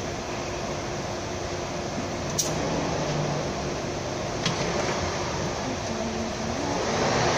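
Steady whooshing of electric fans in a workshop, with a faint hum, and two light clicks about two seconds apart.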